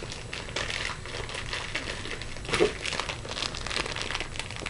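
Plastic packaging crinkling as a doll headband is unwrapped by hand, in a steady run of crackles with one louder crackle a little past halfway.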